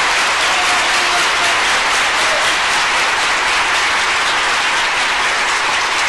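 Large audience applauding, a dense, steady clapping that holds at an even level throughout.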